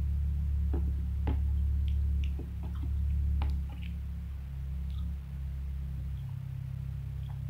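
Eating sounds: scattered soft clicks and squishy mouth noises over a steady low hum. The hum is strongest in the first half.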